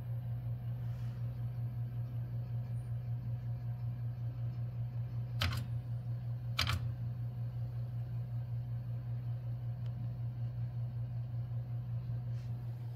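Steady low mechanical hum with a fast, even flutter, broken by two sharp clicks about a second apart near the middle.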